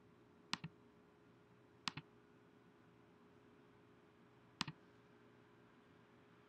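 Three clicks of a computer's pointing button, each a quick press-and-release pair, over a faint steady hum in an otherwise near-silent room.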